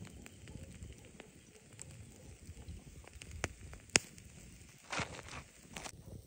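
A wood fire crackling under meat grilling on a wire grate, with scattered sharp pops, the loudest about four seconds in.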